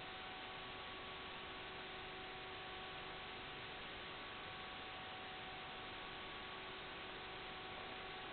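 Steady static hiss with a few faint, unchanging whining tones: electrical noise on the audio channel of an analog FPV video link.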